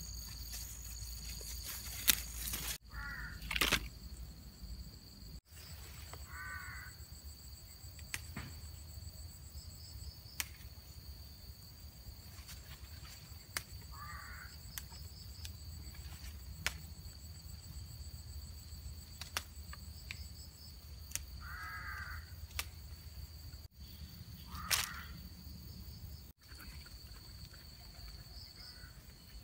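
A crow cawing about six times, a few seconds apart, over a steady high-pitched drone of insects, with occasional light clicks from plants being handled and picked.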